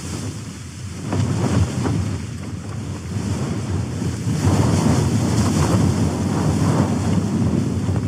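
Strong wind gusting against a tent, heard from inside, swelling and easing in rushing waves as the gusts buffet the fabric.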